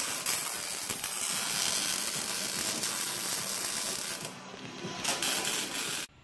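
Electric arc welder crackling steadily as it welds a car's steel frame rails. It dips about four seconds in, picks up again briefly, then cuts off suddenly near the end.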